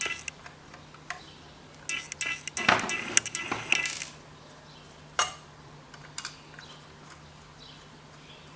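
Small hard parts clattering and clicking as the diagnostic tool is handled and taken apart. There is a burst of clinking about two to four seconds in, then a single sharp click and a few lighter ticks, over a faint steady low hum.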